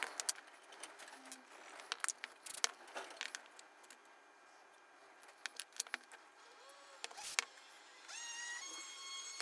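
Wooden blocks being handled and set down on a workbench: scattered light knocks and clicks of wood against wood and against the bench top. Near the end a faint steady high tone comes in, starting with a short rising glide.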